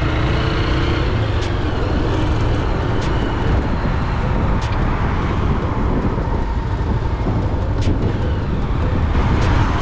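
Steady vehicle road noise with a strong low rumble, as from a car being driven, with a few light clicks.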